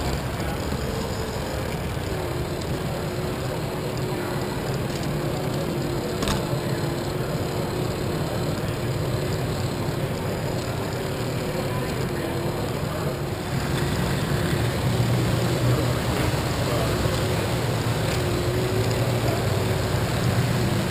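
A Lego monorail train's small electric motor running steadily as the train travels along its track, heard up close on board, with a steady whirring tone. The running grows louder about two-thirds of the way in, over a murmur of voices in a large hall.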